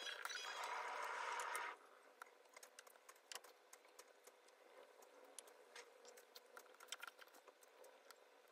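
A louder steady noise that cuts off suddenly about two seconds in, then faint, scattered light taps and clicks of fingers tapping on an iPad's glass screen.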